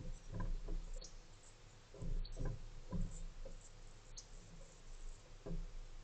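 A few dull, low knocks and bumps in short clusters, about half a second in, around two seconds, at three seconds and again near the end, over a steady low hum.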